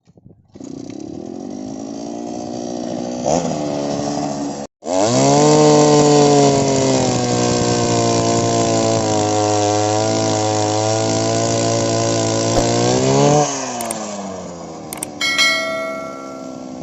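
Small petrol engine of an earth auger running. It idles low, then after a brief break it revs up high and holds steady for about eight seconds before dropping back to a low idle. A short metallic ringing comes near the end.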